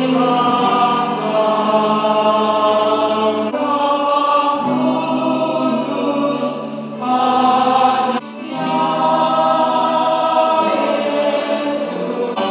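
Choral music: voices holding long sustained chords that shift every few seconds, with a brief break about eight seconds in.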